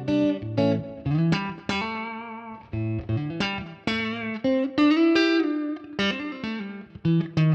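Electric guitar, a Telecaster on its neck pickup with the tone control in circuit (the blackguard wiring's middle switch position), played as a phrase of picked single notes and double-stops with bent notes and vibrato.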